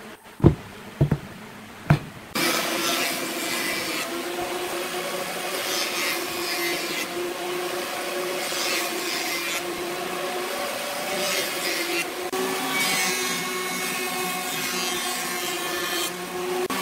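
Three sharp wooden knocks as blocks of wood are set down on a workbench. Then a jointer starts running, a steady machine hum with a rough hiss from the cutterhead that swells and fades as a dark hardwood block is pushed across it by hand.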